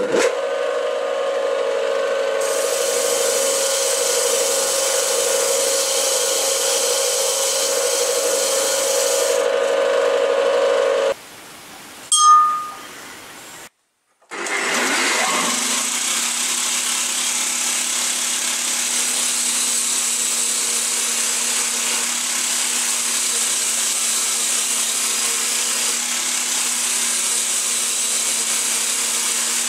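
A motor-driven brass wire wheel running steadily as steel is brushed against it. It stops about 11 s in, and after a brief lull with one sharp metallic clink an abrasive belt grinder wheel starts up and runs steadily as a chain-Damascus steel knife blade is ground on it, throwing sparks.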